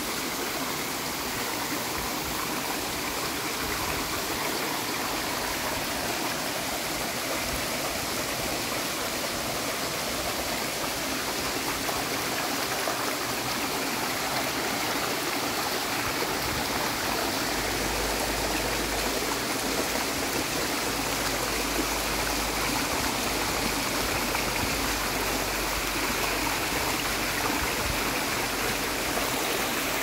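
Mountain stream rushing over the lip of a waterfall and splashing down between boulders, heard close up as a steady, unbroken wash of water.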